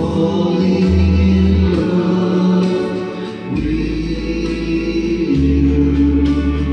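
A song with choir singing over a deep bass line, played back from a Gradiente CD 5500 cassette deck through a Pioneer SA-6300 amplifier and loudspeakers. It is loud and steady, with a short dip about three and a half seconds in.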